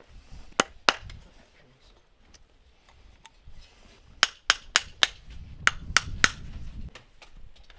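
Farrier's hammer striking horseshoe nails. Two sharp metallic taps come about half a second in, then a run of about eight ringing taps at roughly three a second.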